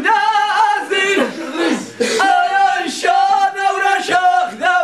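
A single voice singing long held notes that waver and turn in pitch, with a short break about two seconds in.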